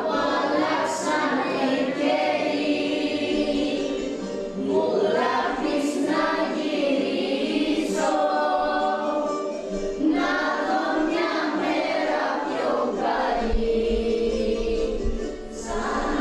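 Background music of a choir singing, in long phrases.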